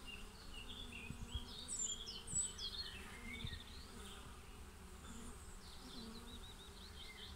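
Faint buzzing of honeybees flying in and out of a hive entrance, foragers coming home heavily laden with nectar and pollen. Short high chirps and a trill sound in the background.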